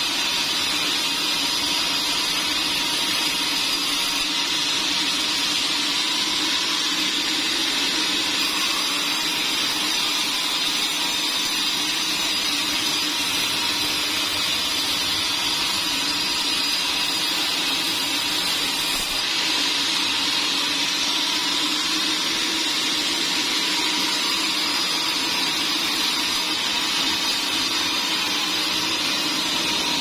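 Band sawmill blade sawing lengthwise through a large pine log: a loud, steady, unbroken sawing hiss with a faint constant whine from the running machine.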